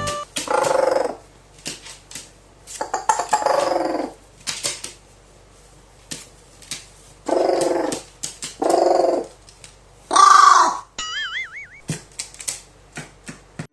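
Pet crow calling: about six drawn-out calls, each under a second long, with the loudest and highest-pitched near ten seconds in, and scattered light clicks between them. A short warbling electronic tone follows the last call.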